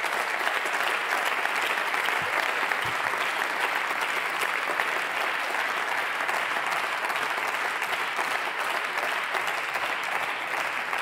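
Sustained applause from many members of parliament clapping in a large chamber, steady throughout.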